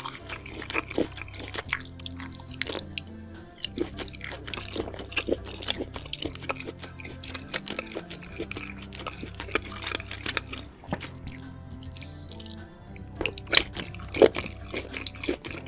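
Close-up chewing and crunching of food, many short sharp mouth clicks, over background music with a steady bass line; a few louder crunches near the end.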